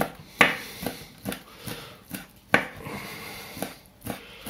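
A sharp kitchen knife chopping salted herring fillets finely on a cutting board: uneven knocks of the blade, about two a second.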